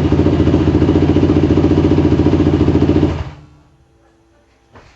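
Yamaha WR450F's single-cylinder four-stroke engine, freshly rebuilt with new piston rings, running with an even pulsing beat. It is shut off about three seconds in and dies away quickly, followed by a faint click.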